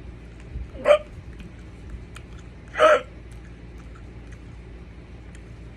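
A man hiccuping twice, about two seconds apart, while eating hot Thai bird's eye chili peppers: hiccups set off by the chilis' heat.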